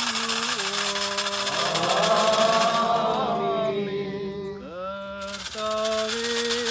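Liturgical chanting of a hymn, the voices holding long notes and stepping from one pitch to the next, with more voices joining in the middle. A steady, high rattling clatter runs underneath, dropping out for about two seconds after the middle.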